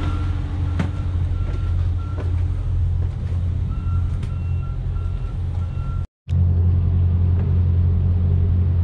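Diesel engines of a large Hatteras motor yacht idling steadily with a deep, even hum, warming up before leaving the dock. Short high electronic beeps repeat at uneven intervals over the hum, and the sound cuts out for a moment about six seconds in.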